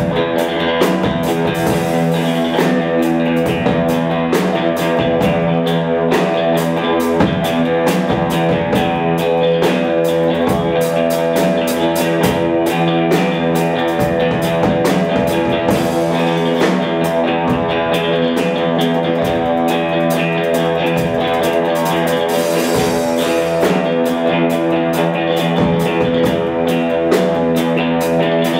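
An ensemble of electric guitars strumming fast and evenly on one held, droning chord, with a rock drum kit underneath. The music stays loud and steady throughout.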